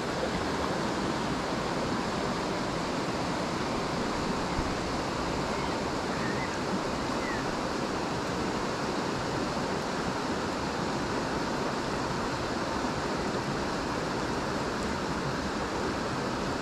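A small river running high, its water rushing steadily over a stony bed.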